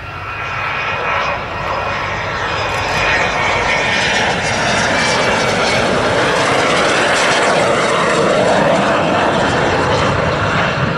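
BAE Hawk jet trainer's single Adour turbofan on a gear-down landing approach: a whining jet roar that grows louder over the first few seconds as the aircraft comes in, then holds steady.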